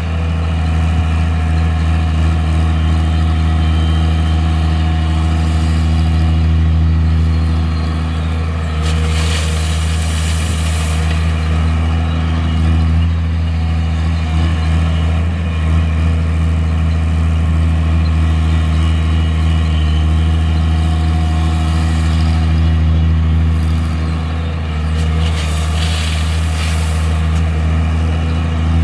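Heavy diesel engines of an excavator loading a dumper truck, running steadily with a deep hum. Twice, about a third of the way in and again near the end, a rush of noise lasting about two seconds comes as the bucket tips crushed stone into the truck bed.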